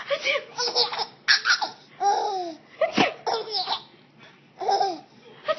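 A seven-month-old baby laughing in repeated short bursts, several of them arching up and down in pitch.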